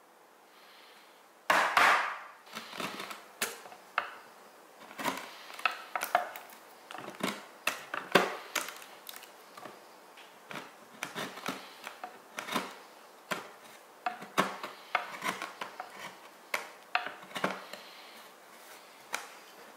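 Steel bench chisel pared and chopped by hand into a wooden rail to cut a shallow recess: a run of irregular, crisp cutting and cracking strokes as the edge severs the wood fibres. They start about a second and a half in, the first the loudest.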